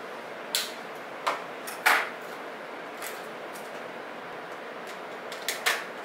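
Stationery in clear plastic blister packs handled and set down on a wooden table: a handful of sharp, irregular plastic clicks and knocks, the loudest about two seconds in and two close together near the end.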